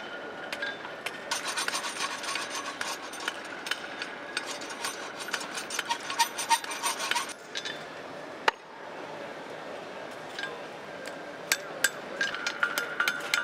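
Blacksmiths' forging work on steel tongs: irregular sharp hammer clicks over rasping, scraping metalwork. A steady whine runs through the first half and cuts off suddenly about seven seconds in.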